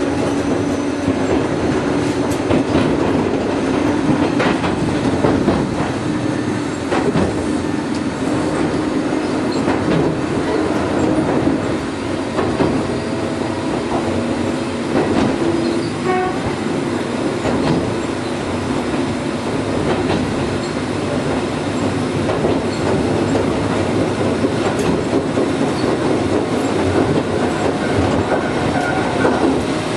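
Gakunan Railway electric train running, heard from inside the rear cab: steady rolling noise with the wheels clacking irregularly over rail joints and a hum that fades about halfway through.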